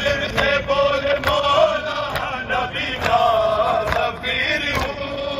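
A man chanting a Shia mourning lament (nauha) in a slow melody with long held notes, punctuated by sharp slaps about once a second, typical of the crowd's chest-beating (matam) keeping the beat.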